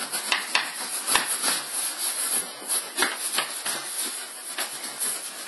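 A cloth rubbing over a velvety-finish leather handbag, an irregular scratchy hiss made of many short strokes, as cleaning cream is worked into the leather.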